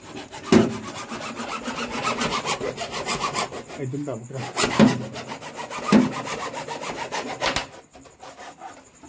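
A hacksaw blade cutting through a plastic borewell column pipe with quick back-and-forth strokes and a few louder knocks along the way. The sawing stops near the end.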